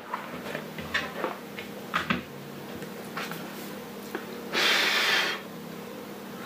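Cloth mouse mat being handled and laid flat on a wooden desk, with a few light taps and scuffs. About two thirds of the way in comes one long swish as a hand and sleeve sweep across the mat's fabric surface to brush off cat hairs. A faint steady hum lies under it.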